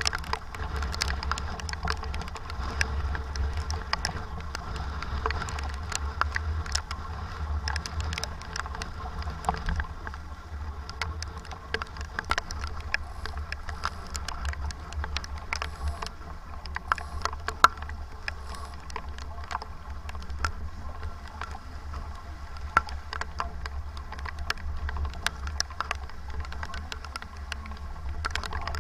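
Sailboat under way in heavy wind: a steady low wind rumble on the microphone over rushing water, with many scattered sharp ticks.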